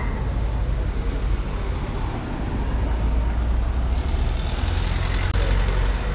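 A Renault Kangoo van's engine runs at low speed as the van creeps toward the listener. It is a low rumble that grows louder through the second half, with a faint higher hum joining about four seconds in.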